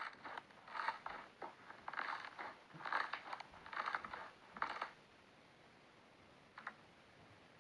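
Slime being squished and pressed, a run of short crackly squishes in quick succession that stops about five seconds in, followed by a couple of faint clicks.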